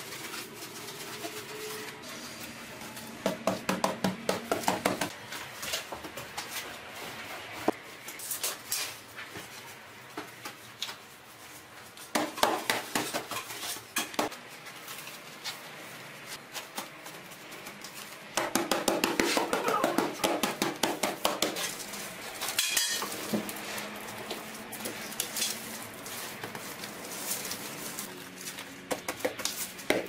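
Bursts of scraping and clinking from a steel trowel working adhesive mortar and knocking against the bucket, several separate bouts of rapid scrapes.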